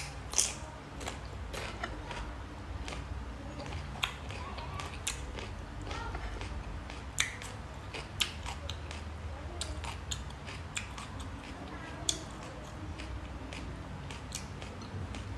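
A person eating close to the microphone: chewing, with sharp wet smacks and clicks every second or so, over a steady low hum.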